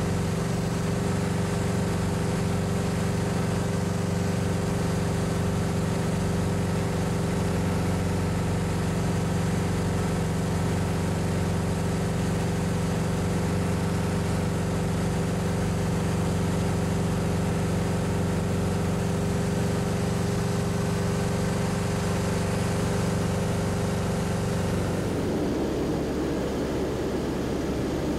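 Grob G-109B motorglider's engine and propeller droning steadily in cruise, heard inside the cockpit. Near the end the steady tone gives way to a rougher rushing sound.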